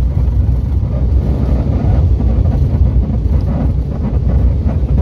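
Steady, loud rumble of a turboprop airliner's engines and airflow, heard inside the cabin as the aircraft rolls along the runway.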